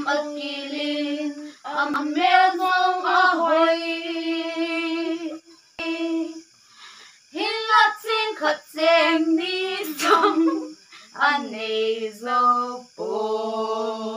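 Women's voices singing a song unaccompanied, in phrases with long held notes and short breaks between them. A sharp click about ten seconds in.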